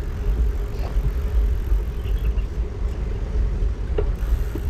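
Wind buffeting the microphone during a bicycle ride, a gusting rumble, with a steady hum underneath.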